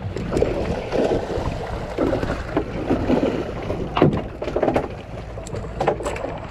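Sport-fishing boat's engine running with a steady low rumble, and wind buffeting the microphone. A sharp knock about four seconds in.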